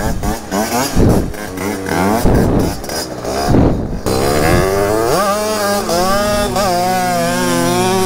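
Two-stroke dirt bike engine revved in sharp blips for the first few seconds, then pulling away, its pitch climbing and dropping repeatedly as it accelerates. From about five seconds in, a steadier lower engine note runs beneath it.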